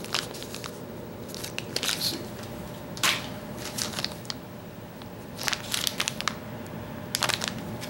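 Plastic soft-bait package crinkling as it is handled, in irregular crackles every second or so.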